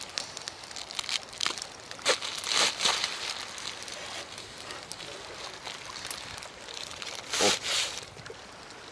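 Black plastic bag and tape crinkling and rustling as a wrapped package is cut open with a knife and pulled apart by hand, with louder bursts of crackling about two to three seconds in and again near the end.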